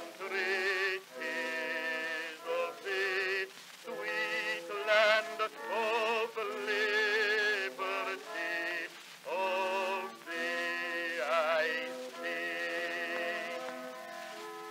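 Music: a slow patriotic song, a singer holding long notes with vibrato over an accompaniment, in phrases of a second or two.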